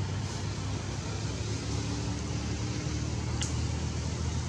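Steady low outdoor background rumble, with a single sharp click about three and a half seconds in.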